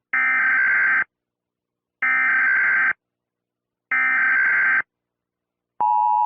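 Emergency Alert System SAME header: three bursts of warbling digital data tones, each about a second long and a second apart. About a second before the end, the steady two-tone EAS attention signal begins.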